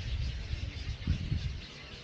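Wind buffeting the microphone: an uneven low rumble that dies down about one and a half seconds in, over a faint, steady, high outdoor hiss.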